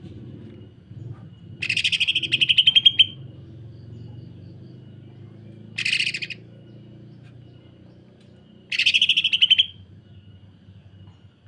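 Cucak ijo (green leafbird) singing rough, rapid rattling bursts like a sewing machine: three bursts, the first and last longer, with a faint thin steady whistle between them.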